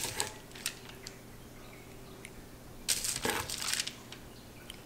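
A metal serving utensil clinking and scraping on aluminium foil and a plate as fish and vegetables are served: a few light clicks near the start, then a short cluster of scrapes and taps about three seconds in.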